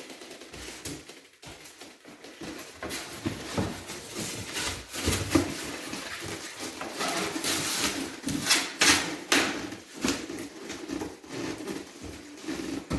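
Rustling and handling noise with scattered clicks and knocks as padding and gear are packed into a hard shell instrument case around a bagged double bass.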